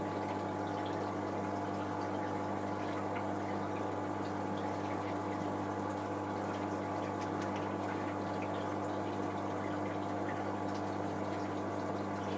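Electric water pump running with a steady hum, over a constant wash of moving water.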